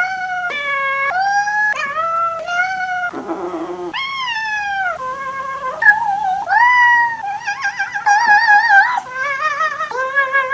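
A cat's meows strung into a yodel-like tune: a quick run of short pitched mews, about two a second, stepping up and down in pitch. A rougher, grating sound comes about three seconds in, and near the end the mews warble rapidly.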